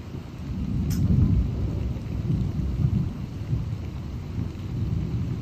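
Rolling thunder from a thunderstorm with heavy cloud-to-ground lightning: a low rumble that swells about a second in and keeps rolling, never quite stopping.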